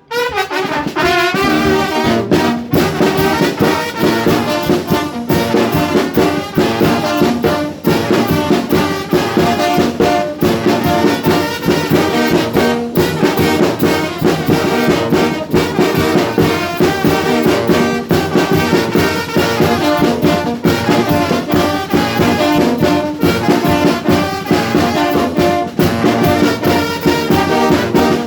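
Mexican brass band (banda) playing with trumpets and trombones over a steady percussion beat.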